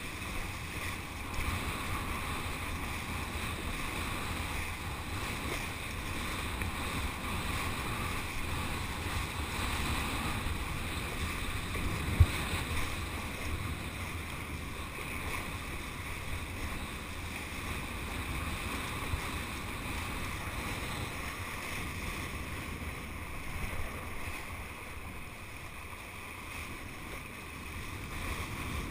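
Steady rush of wind on the microphone and water streaming under a kiteboard riding across the water, with one sharp knock about twelve seconds in.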